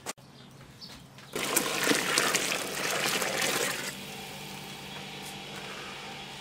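Large pot of broth at a rolling boil, bubbling around a cloth bag of rice. The bubbling grows loud about a second in and eases to a steadier, quieter bubbling after about four seconds.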